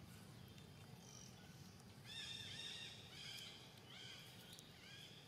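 Young macaques giving a run of short, high-pitched squeals, starting about two seconds in and repeating several times.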